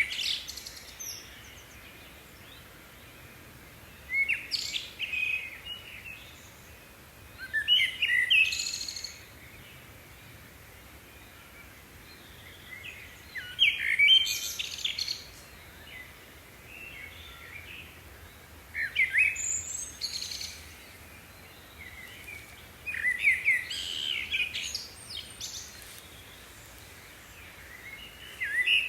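A songbird singing short phrases of quick sweeping whistled notes, one phrase every four to five seconds, over a faint steady outdoor hiss.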